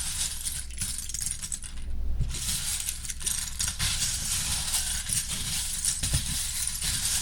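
Small plastic LEGO pieces clinking and rattling against each other in a continuous dense clatter of small clicks, over a low steady hum.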